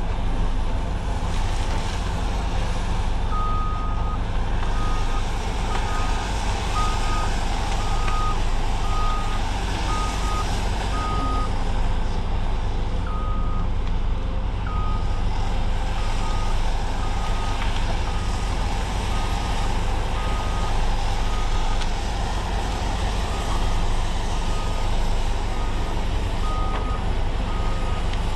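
Heavy diesel machine running steadily while a warning alarm beeps at one pitch, about once or twice a second, with a short break near the middle; it is typical of a Cat 568 shovel logger's travel or backup alarm.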